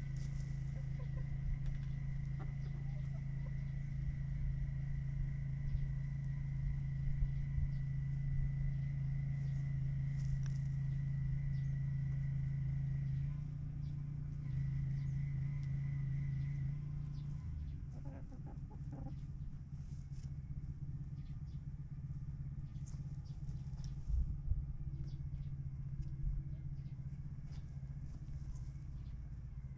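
A steady low mechanical hum with a thin high whine, which stops about 17 s in, and a few faint chicken clucks soon after.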